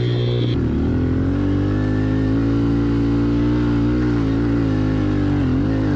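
Small four-stroke 110 cc pit bike engine running under way. Its note shifts about half a second in, then holds fairly steady.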